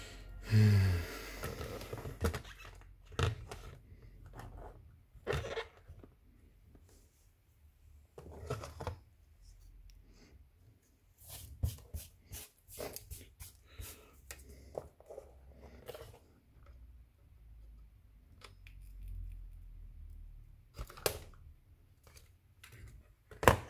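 Bench handling noise: a TV circuit board and multimeter test probes being picked up, moved and turned over on a workbench, giving scattered irregular clicks, taps and rustles. A brief, loud falling tone sounds about half a second in.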